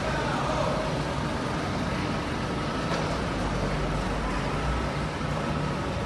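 Steady machine rumble and noise of an industrial plant, with a faint steady high tone running through it and no distinct events.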